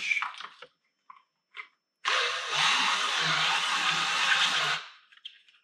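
Cordless drill spinning a step bit through a plastic snowmobile accessory panel, widening a pilot hole to one inch. A few light handling clicks come first; the drill starts about two seconds in, runs steadily for about three seconds and winds down near the end.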